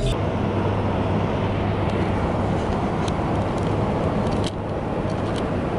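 Steady road and engine noise heard inside the cabin of a vehicle moving at highway speed, with a low hum and a few faint clicks in the second half.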